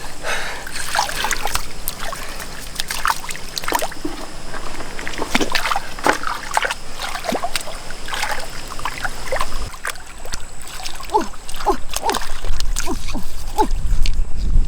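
Water splashing and dripping: many small splashes and quick falling drip sounds, with a low rumble building near the end.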